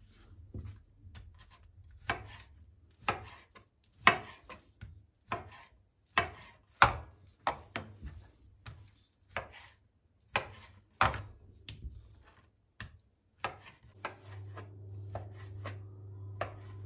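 Kitchen knife cutting raw chicken breast into cubes on a plastic cutting board, the blade knocking on the board in irregular strokes, roughly one or two a second.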